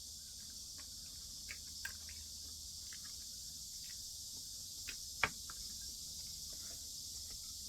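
Quiet eating at a table: a few soft clicks and taps of utensils or chopsticks against dishes, with one sharper click about five seconds in, over a steady high hiss.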